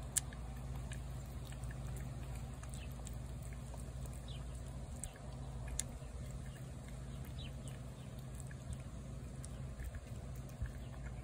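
Cat eating wet cat food from a plate: scattered faint clicks and smacks of chewing over a steady low background hum.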